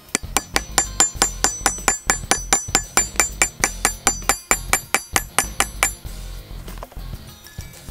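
A hammer rapidly tapping a steel rivet setter against a steel anvil block, setting a rivet through a leather strap: about five sharp, ringing metallic strikes a second that stop about six seconds in.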